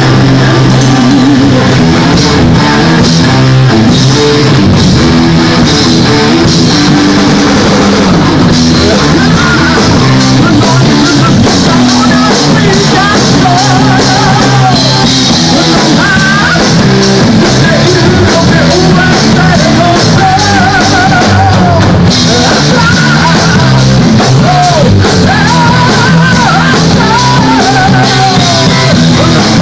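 Rock band playing live: electric guitars and a drum kit, loud and steady, with a woman singing into a microphone from about nine seconds in.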